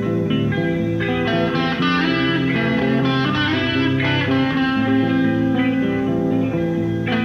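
An electric guitar playing a continuous line of held, overlapping notes.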